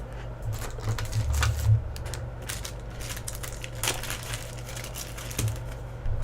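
Trading cards being handled: scattered light clicks, taps and rustles as cards and their plastic holders are slid and set down, over a steady low hum.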